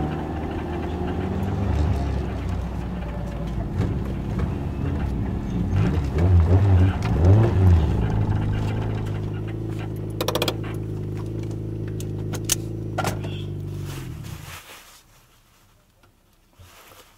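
Classic Mini engine idling as the car pulls up, with the revs rising briefly a couple of times about six to seven seconds in. It then settles to a steady idle, with a few sharp clicks, until the engine is switched off about fourteen and a half seconds in and the sound stops abruptly.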